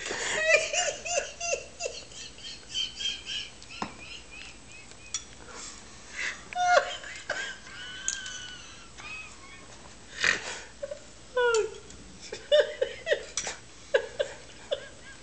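A man's helpless laughter in fits, laughing to tears: quick runs of short low "ha" pulses alternating with high-pitched wheezy squeals, broken by short lulls for breath.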